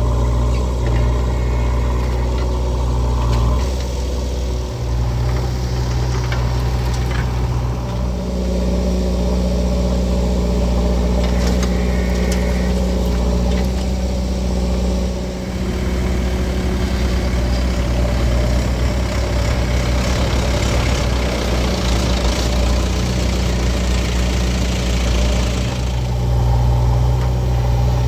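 Diesel engines of a JCB 3DX backhoe loader and tractors running steadily, the engine note shifting several times as the loader works.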